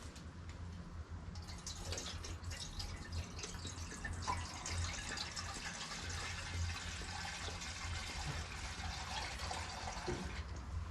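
Water being poured into the sawmill's blade-lubrication water tank, a steady splashing hiss that starts about a second in and stops shortly before the end.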